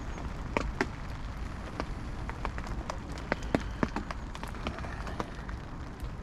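Rain on a fishing bivvy: single drops tap irregularly and sharply on the fabric canopy over a steady hiss.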